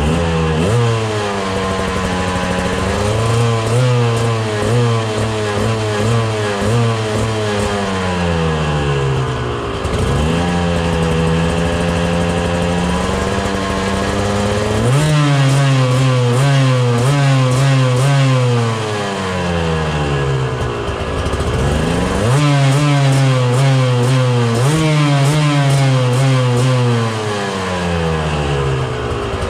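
Two-stroke KTM dirt bike engine being revved against the wall: the revs climb and are held high for several seconds, then fall back, about four times over.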